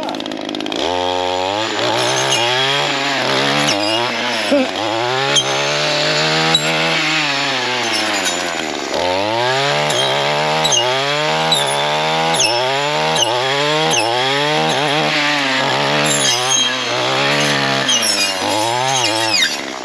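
Gas trimmer with a gear-reduced saw-blade attachment cutting through privet and wisteria stems, the engine revving up and down over and over as each stem is hit. Sharp clicks come as the blade strikes wood.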